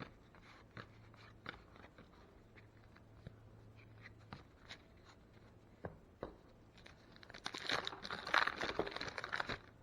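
Baseball cards being handled with scattered light clicks and taps, then about seven seconds in a wax-paper card pack wrapper crinkling and tearing for a couple of seconds.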